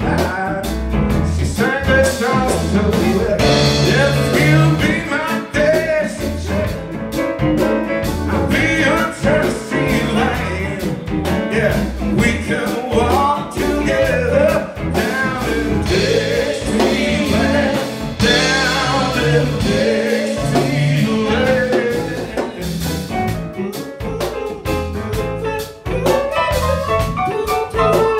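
Live band playing a blues-rock song: a man sings lead over keyboards, electric guitar, bass and drum kit.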